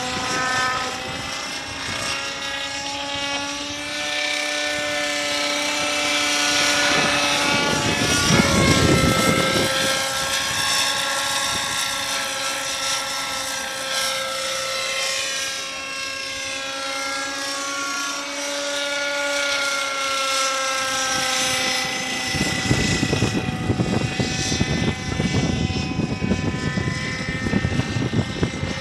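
Radio-controlled model helicopter flying, its pitched whine sliding up and down as it manoeuvres. Low rumbling gusts of wind on the microphone come in briefly near the middle and again through the last several seconds.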